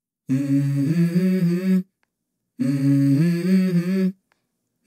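Background music: a hummed vocal melody of a few stepping notes, heard twice in two phrases of about a second and a half with a short silence between.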